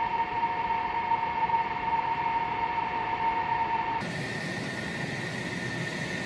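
F-16 fighter jet's turbofan engine whining steadily as it taxis, a high steady whine over an even rushing hiss. About four seconds in the sound cuts abruptly to another take, where the whine sits higher in pitch.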